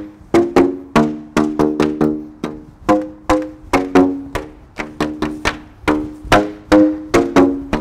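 Tube instrument of black plastic pipes slapped at the open ends with sandal soles, playing a rhythmic bass line of short pitched notes, about three a second, on a few different pitches.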